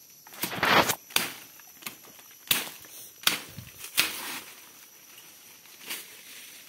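Machete chopping into undergrowth: about six sharp separate strikes, the first and loudest a longer noisy chop with rustling leaves about half a second in.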